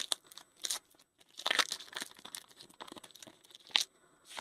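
A trading card pack wrapper being torn open and crinkled by hand, in several short bursts.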